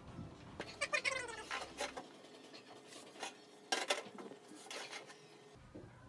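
A cat meows once, a falling call about a second in, over a few light taps of a marker and metal ruler on an aluminium cable tray.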